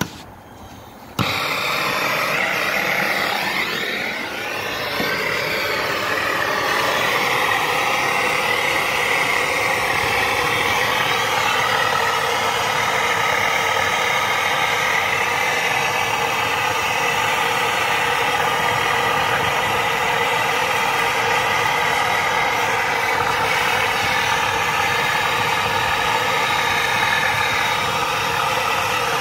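MAPP gas torch lit about a second in, its flame then hissing steadily and loudly as it heats the copper refrigerant pipes for brazing.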